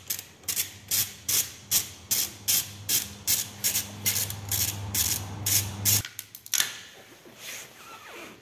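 Ratchet wrench clicking in a steady rhythm, about three strokes a second, as a 13 mm nut is backed off a motorcycle engine-mount stud. The clicking stops about six seconds in.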